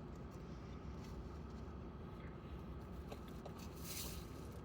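Faint handling noises, light rustles and a few small ticks, over a low steady hum inside a car, with a soft rustle of packaging near the end.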